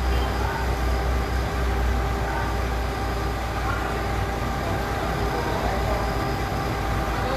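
Heavy vehicle engine running steadily, with a deep low rumble and faint steady whines above it, as the engine works while a machine is being lifted off a truck.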